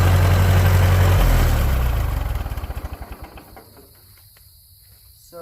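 Old Ferguson tractor's engine idling steadily, then switched off about a second in: it runs down with slowing, separate strokes and stops about three and a half seconds in.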